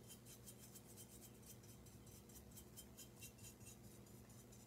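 Faint scratching of a dry paintbrush stroked quickly back and forth over a painted ceramic duckling, about five or six strokes a second, over a low steady hum.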